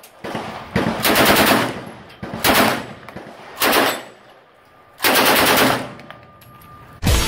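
Bursts of rapid automatic gunfire: about five bursts, each under a second long, with short gaps between them. Music starts just before the end.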